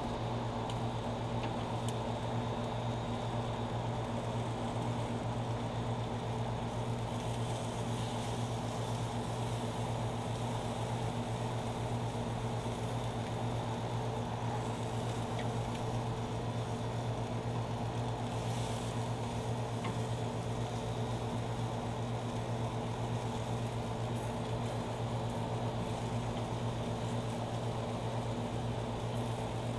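Steady low hum of a running machine, holding one constant pitch without change.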